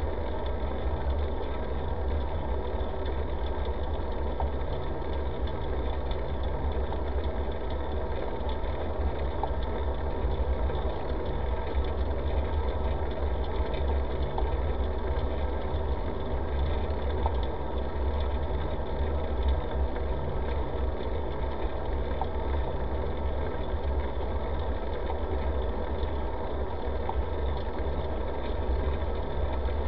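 Steady rumble and hum of a bicycle rolling along a smooth asphalt path, picked up through a camera mounted on the bike: tyre and frame vibration with wind, without a break.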